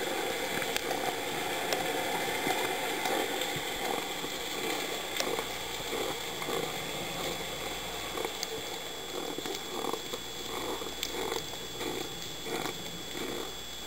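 Underwater ambience heard through a dive camera's housing: a steady muffled rushing with scattered faint clicks. A soft fluttering pulse comes in over the last few seconds.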